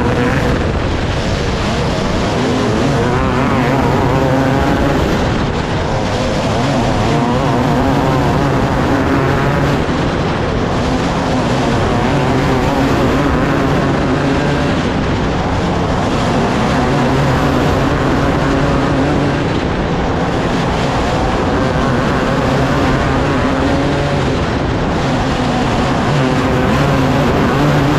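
Several race car engines running hard as a field of cars races around a track, their pitches wavering up and down and overlapping.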